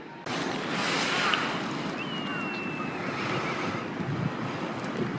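Outdoor harbour ambience: wind buffeting the microphone over lapping sea water, starting abruptly a moment in. A faint thin high whistle falls slightly in pitch about two seconds in.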